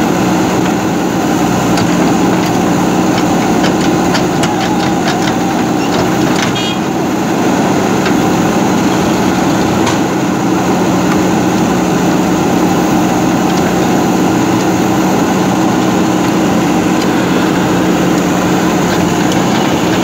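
JCB 3DX backhoe loader's diesel engine running steadily while its backhoe arm digs out soil, with a scatter of light clicks between about two and seven seconds in.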